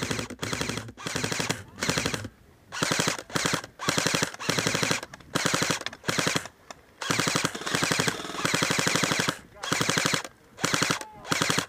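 Airsoft electric guns (AEGs) firing on full auto, about fifteen short bursts of rapid mechanical clacking, each a fraction of a second to about a second and a half long, with brief pauses between them.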